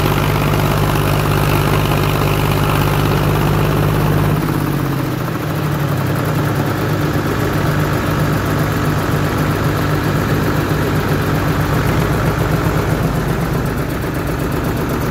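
Diesel tractor engines running under load while one tractor tows a Sonalika DI 60 that is stuck deep in mud. The steady engine note shifts about four and a half seconds in and then turns to a rapid throb.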